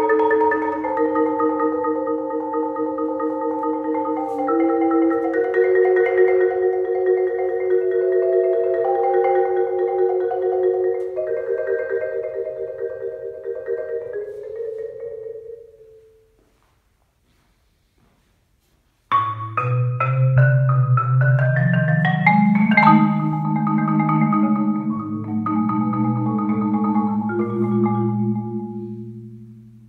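Solo concert marimba played with mallets: long held chords that fade away, a pause of about three seconds, then a sudden loud entry with quick runs over deep bass notes, settling into held chords that die away near the end.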